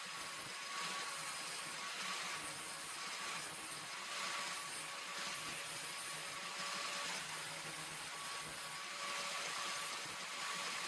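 Angle grinder with a flap disc running steadily, with a steady whine over a hiss, while a strip of circular saw blade steel is held against the disc to grind off its burr.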